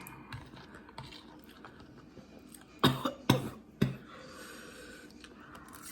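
A person coughing three times in quick succession, short sharp coughs about half a second apart.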